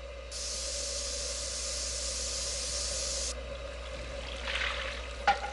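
Anime sound effect of steam hissing: one steady, even hiss lasting about three seconds that starts and stops abruptly, over a faint constant hum, with a short click near the end.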